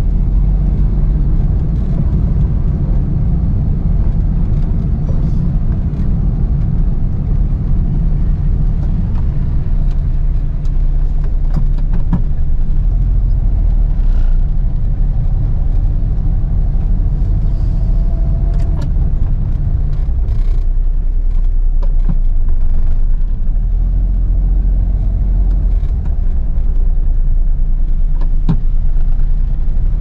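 Suzuki Mehran's small three-cylinder petrol engine running as the car drives in slow city traffic, heard from inside the cabin; a steady low drone whose note shifts a few times as it speeds up and slows.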